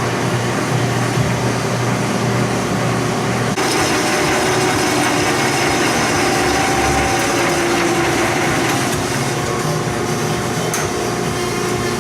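Metal lathe running and cutting a part, a steady machine noise with a faint hum. The sound shifts abruptly about three and a half seconds in.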